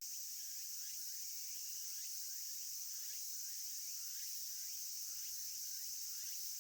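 A steady, high-pitched insect chorus, with fainter short chirps repeating about twice a second underneath.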